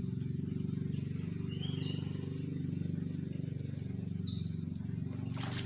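Short, high-pitched calls of a blue-crowned hanging parrot (serindit), three times, each dropping slightly in pitch, about two and a half seconds apart. A steady low hum and a constant thin high tone run underneath, with a brief rustle near the end.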